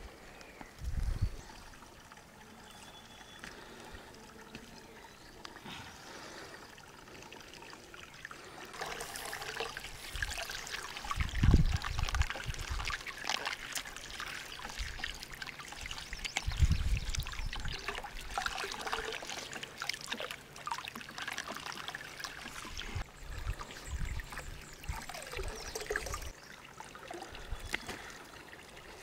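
Water from a plastic pipe splashing over spring onions being rinsed by hand and into a steel pot. The splashing starts about a third of the way in and eases off near the end, with a few low thumps.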